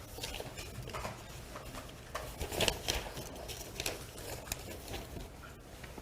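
Scattered faint clicks and rustles in a small room, over a steady low hum, with no speech.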